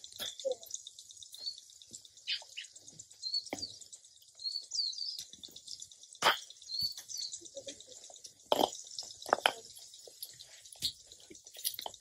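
Sharp club-on-ball strikes from golf practice shots, a few seconds apart, the loudest about six and eight and a half seconds in. Birds chirp faintly in the background.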